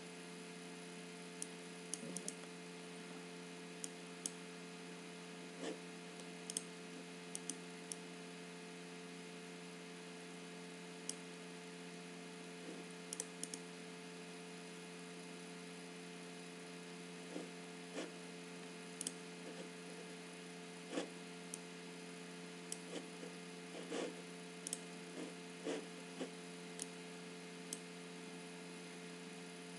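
Faint, irregular clicks of a computer mouse, some in quick pairs, over a steady hum.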